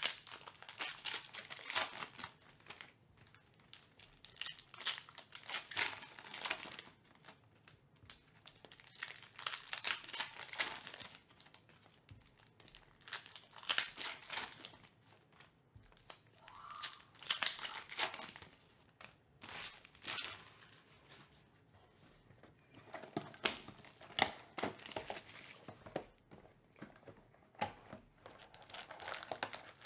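Foil trading-card pack wrappers being torn open and crinkled by hand, in crackling bursts every few seconds with short pauses between.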